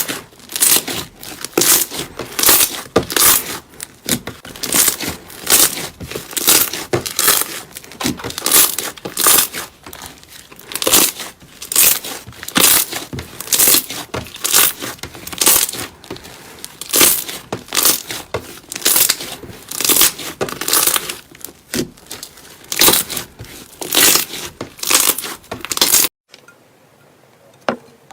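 Slime being pressed and squeezed by hand, a run of crackling, sticky pops about two a second. Near the end it cuts off abruptly, leaving only faint clicks.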